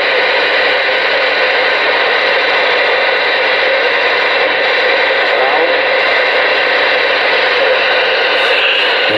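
Steady receiver static from a Ranger RCI-2970N2 10-meter radio's speaker: an even, loud hiss with no signal or voice on it.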